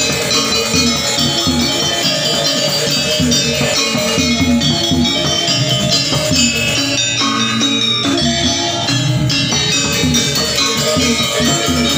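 Balinese gamelan gong ensemble playing in full: bronze-keyed gangsa metallophones ring in quick interlocking figures over the two-headed kendang drum. The bright high shimmer thins briefly about seven seconds in, then comes back.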